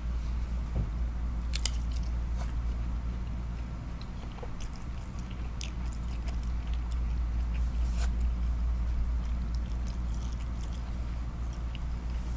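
Close-up chewing of spicy jellyfish, with scattered sharp clicks, over a steady low hum.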